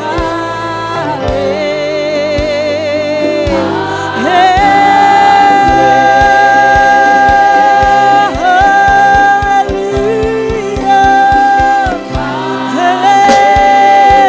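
Gospel praise-and-worship song: voices holding long notes with vibrato and stepping between pitches, over band accompaniment with a steady beat.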